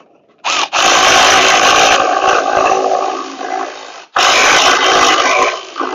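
Power ratchet with a 3/4-inch socket running in two trigger pulls to tighten a quick-release bolt on a bunker board clip. The first pull starts about half a second in and lasts over three seconds. It cuts off sharply, and the second pull follows at once and runs about a second and a half.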